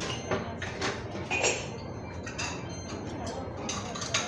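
Metal spoon and fork clinking and scraping against a soup bowl while noodles are lifted: several short, sharp clinks at irregular intervals, with a cluster near the end, over steady background noise.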